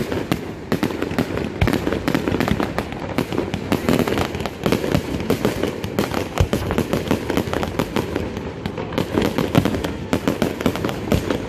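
Fireworks display going off: a dense, continuous run of sharp pops and bangs, many a second, with no let-up.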